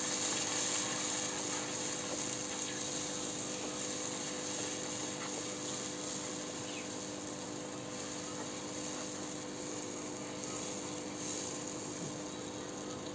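Spice paste of onion, garlic, turmeric and chilli sizzling in hot oil in a kadai while a wooden spatula stirs it, being fried until the oil separates. The sizzle is a steady hiss that eases a little over the seconds, with a faint steady hum underneath.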